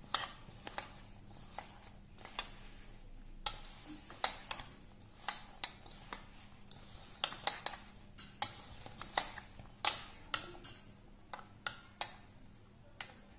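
Hand kneading crumbly cookie dough in a stainless steel bowl, with irregular sharp clicks and knocks, about two a second, as the hand and bangles strike the metal bowl.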